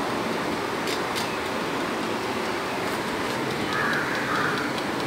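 A couple of faint clicks from the electric steamer's timer dial being turned, about a second in, over a steady background hiss.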